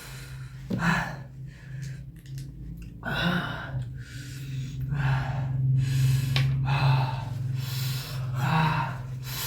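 A man's repeated sharp gasping in-breaths and sniffs, about one a second, after taking sneezing powder: he is trying to bring on a sneeze that won't come.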